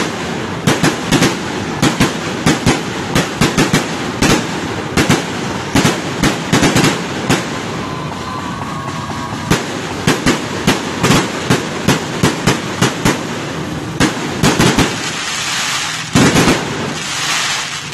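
Aerial fireworks bursting overhead: rapid, irregular volleys of sharp bangs, several clusters of quick reports, over a steady background hiss, which swells into a louder stretch of hissing noise near the end.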